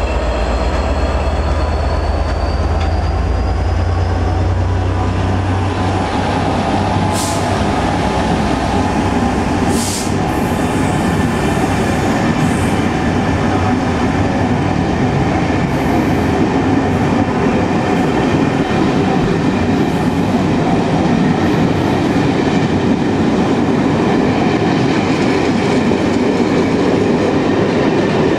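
Passenger coaches rolling past over pointwork on a curve: a loud, steady rumble of steel wheels on rail, with thin squealing tones from the wheels. A deep low rumble fades out about five seconds in.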